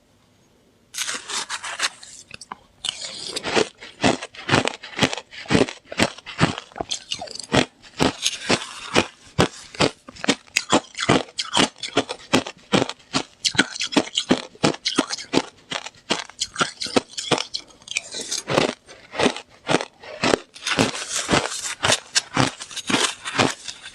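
Slush ice being bitten and chewed close to the microphone: rapid, crisp crunches, about two to three a second, starting about a second in.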